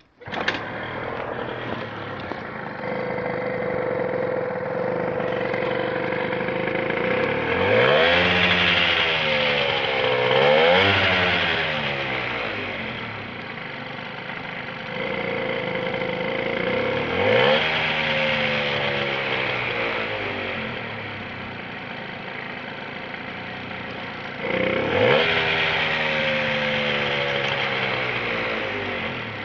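Vehicle engine idling, blipped up and back down four times (about 8, 10, 17 and 25 seconds in), with a steady tone over the idle. The engine idles low and makes a strange noise, the owner's complaint.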